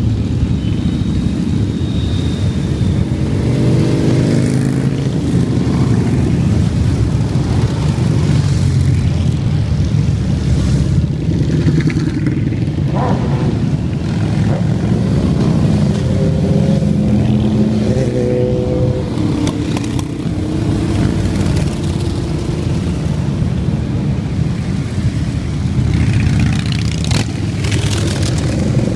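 A steady stream of V-twin motorcycles, mostly Harley-Davidson touring bikes, rumbling past at parade pace. Engine notes rise and fall as individual bikes come by and accelerate, around four seconds in and again from about sixteen to nineteen seconds.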